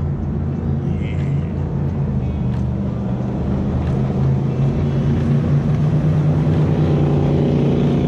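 Jet boat engine running at speed as the boat passes close by, a steady drone that grows louder from about halfway through.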